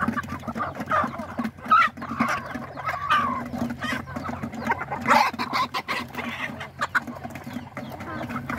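A flock of chickens clucking continuously while feeding, with frequent sharp taps of beaks pecking at a steel feed pan.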